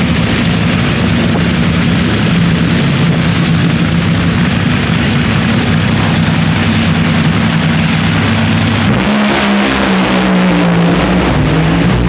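Loud, steady drag-racing engine noise at the strip, with steady low engine tones under a dense wash of noise. About nine seconds in the sound changes and shifting pitched tones come in.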